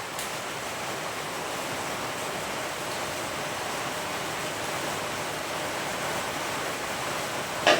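Heavy rain falling steadily on a workshop roof, an even hiss. One short, sharp knock comes just before the end.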